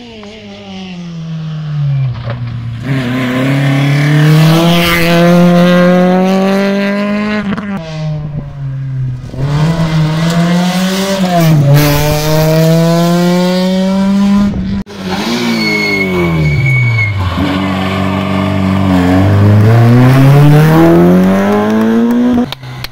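Rally car engines at full throttle, revving up through the gears with pitch climbing and dropping at each shift as the cars pass, in several clips cut together.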